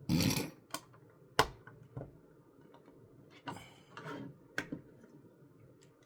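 Plastic LEGO pieces being handled and fitted together. A short rustle at the start, then a handful of sharp plastic clicks and two brief scrapes as pieces are picked up, tapped and pressed into place.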